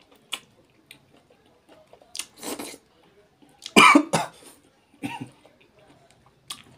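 A man coughing several times mid-meal, his mouth full of spicy duck curry: a couple of short coughs about two seconds in, a louder pair around four seconds, and one more near five seconds, with faint mouth clicks of chewing in between.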